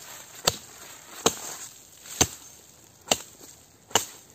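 Chopping strokes cutting through spruce branches: five sharp hits in a steady rhythm, a little under a second apart.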